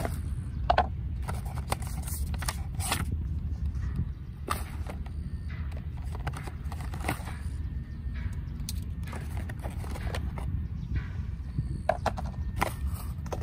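Cardboard gift box and its paper and plastic packaging being handled and opened, with scattered irregular taps, clicks and rustles over a steady low rumble.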